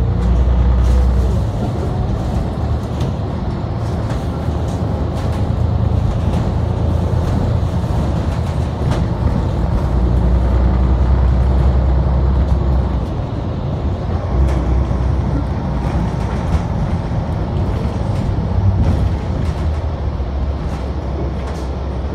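Cabin ride noise of a New Flyer XD60 articulated diesel bus underway: a loud, low engine and drivetrain drone that eases off for a moment past the middle and then comes back, under road noise and occasional short rattles.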